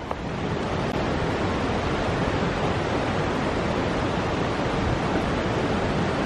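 Linville River rushing steadily over rocks and small rapids, swelling up over the first second and then holding even.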